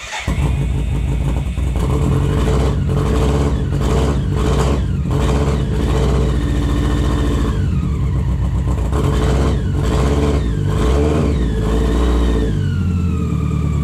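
BMW K100's four-cylinder fuel-injected engine starting and running, revving unevenly with the throttle before the revs drop and it settles to a steadier idle near the end.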